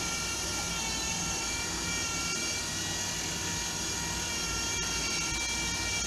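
Electric cup turner's motor running steadily, turning a tumbler, with a high whine made of several steady tones over a low hum.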